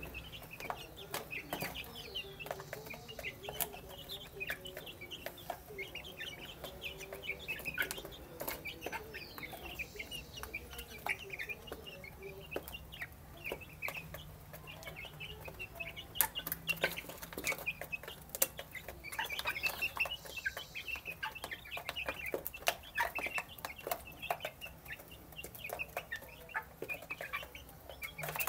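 A flock of half-grown chicks peeping and chirping continuously in short high calls while they feed, with many sharp taps from their beaks pecking at the feeder.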